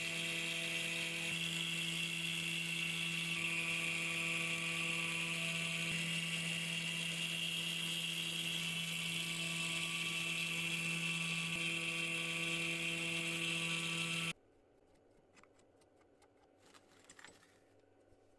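Carvera desktop CNC mill's belt-driven brushless spindle running steadily as a single-flute spiral bit cuts through an acrylic sheet: a constant whine with a higher hiss. It cuts off suddenly near the end, leaving a few faint clicks.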